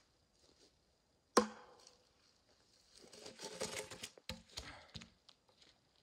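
A log being handled: one sharp knock of wood a little over a second in, then scraping and a few more knocks as the log is dragged over rock and laid across another log.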